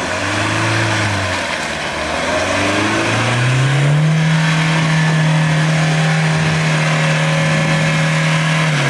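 A four-wheel drive's engine revving while trying to climb a slippery hill. Two short revs rise and fall, then about three and a half seconds in the revs climb and are held high and steady for about five seconds before dropping away at the very end.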